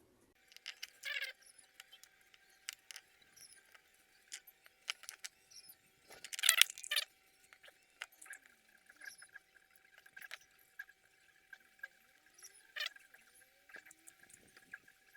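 Scattered small clicks and short scraping snips of a cutter working on the thin wires of a UTP network cable. The loudest snip comes about six and a half seconds in, with others near the start and near the end.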